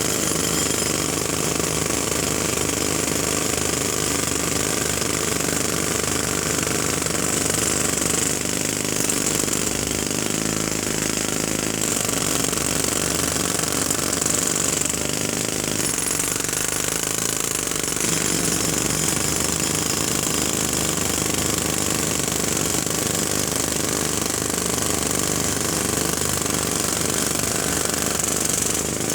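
Jackhammer hammering continuously at a steady, loud level, its rapid blows running together without a break.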